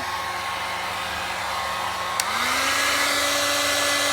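Tesco hand-held hair dryer running with a steady whir of blown air and motor hum. About halfway through there is a click, and the motor's pitch rises and settles higher as it goes up to a faster setting.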